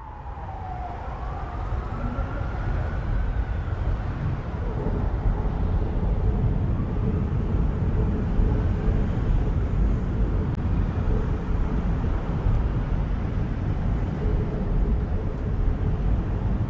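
Steady rumble of road traffic, with a faint siren gliding up and down during the first few seconds.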